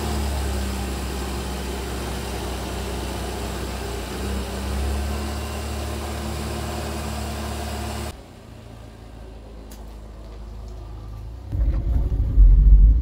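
Vauxhall Viva's four-cylinder engine idling steadily, its carburettor mixture just leaned off, with a slight rise in revs about four to five seconds in. After a sudden drop to a quieter stretch, a louder low engine rumble from inside the car's cabin comes in near the end.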